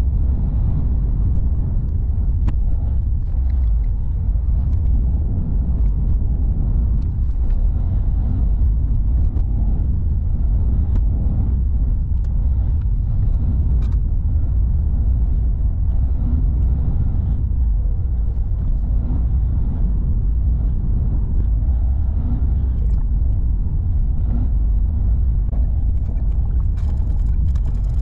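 Steady low rumble of a car driving, engine and tyre noise heard from inside the cabin, with a few light ticks.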